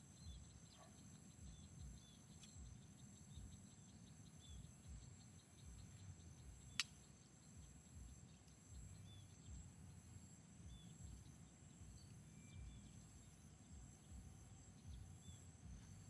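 Faint, steady high-pitched insect chorus with small repeated chirps, over a low rumble. A single sharp click about seven seconds in.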